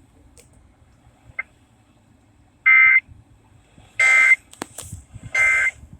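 Emergency Alert System end-of-message signal: three short bursts of raspy two-tone digital data, each about a third of a second long and about a second apart, closing the alert.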